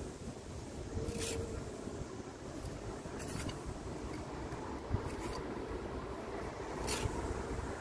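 A steel pointing trowel scraping wet mortar into the joints of a brick wall, about four short scrapes roughly two seconds apart, over a steady low rumble.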